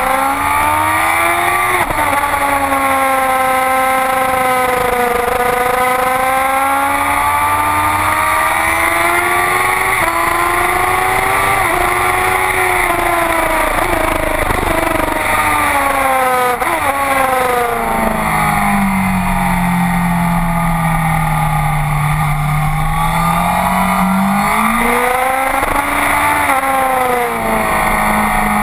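Sport motorcycle engine at racing speed, revs rising and falling through gear changes, dropping to a much lower note past the middle before pulling up again near the end. Heavy wind rush on the microphone.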